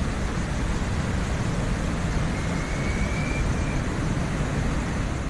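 Steady, deep rushing of a muddy flood torrent, heaviest in the low end.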